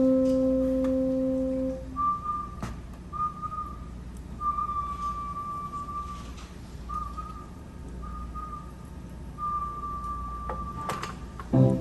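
A person whistling a slow tune in short, separate phrases, after a held low note in the opening two seconds. A band's instruments come in at the very end.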